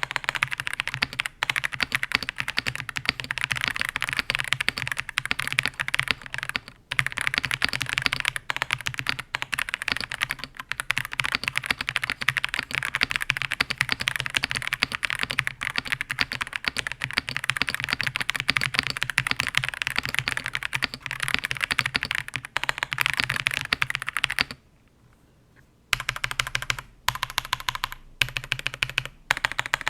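Typing on an Ajazz AK820 Pro mechanical keyboard fitted with lubed KTT Kang White linear switches and Fishing Cherry keycaps: a fast, steady stream of keystrokes. The typing stops for about a second and a half near the end, then comes back in short bursts.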